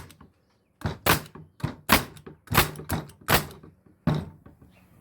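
Repaired Porter-Cable pneumatic stapler firing staples: a quick series of sharp shots, about ten over three seconds, then one more about four seconds in. There is no hiss of air between shots, since the exhaust leak has been cured with new O-rings.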